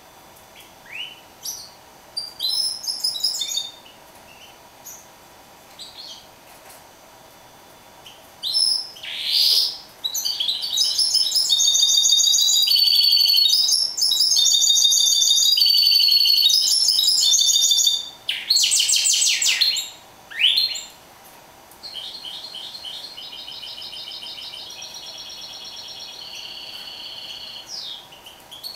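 A caged mule bird, a canary-finch hybrid, singing: scattered chirps and short twittering phrases at first, then about eight seconds of loud, fast, continuous warbling song with rapid trills, a few short bursts, and a quieter, steady repeated trill near the end.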